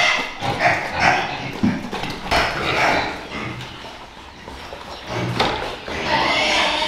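A dog barking repeatedly in short calls, quieter in the middle and louder again near the end.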